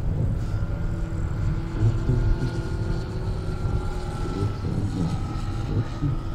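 Radio-controlled Dewoitine D.26 scale model biplane flying overhead, its motor and propeller making a steady drone with a faint high tone, over a low rumble.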